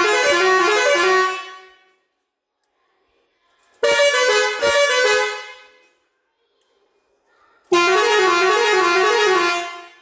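Musical air horn playing three short tunes of about two seconds each, a few seconds apart, the pitch stepping from note to note.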